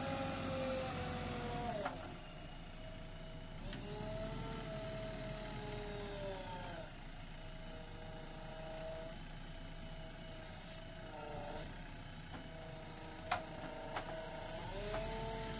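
JCB backhoe loader's diesel engine running under hydraulic load, its pitch rising and falling as the backhoe arm is worked to brace the machine down a slope. It is louder at the start and again near the end, with one sharp click about 13 seconds in.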